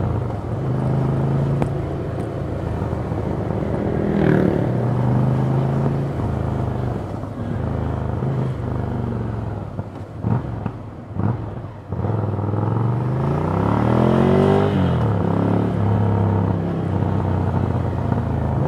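Ducati Scrambler Full Throttle's air-cooled L-twin engine and exhaust under way in traffic, running steadily with a brief rise in revs about four seconds in. Around ten to twelve seconds in the engine drops off, broken by a few sharp knocks, then revs up in a long rising sweep, drops at a gear change, and settles back to steady running.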